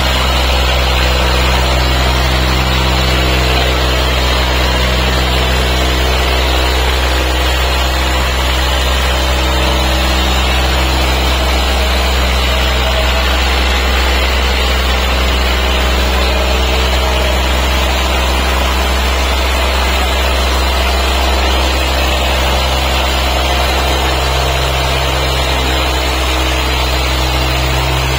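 Diesel tractor engine running hard and steady under heavy load as it drags a weighted sled, with a strong deep hum that shifts slightly in tone partway through.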